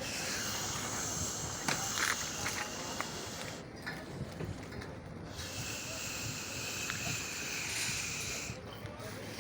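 A steady hiss in two long stretches, with a pause of about a second and a half between them.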